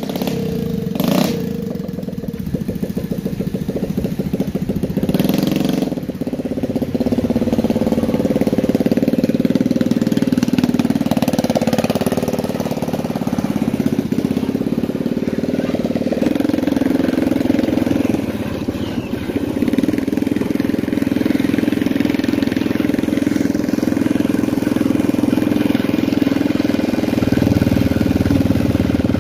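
Small motorcycle engine running while riding at low speed: a steady engine hum whose pitch rises and falls a little.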